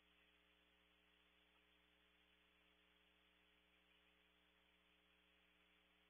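Near silence: a faint, steady electrical hum with an even hiss from the nest camera's audio feed.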